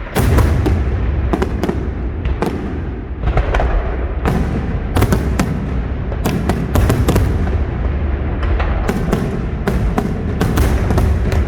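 Aerial display fireworks bursting in a rapid barrage: many sharp bangs and crackles, some in quick clusters, over a continuous deep rumble of shell bursts.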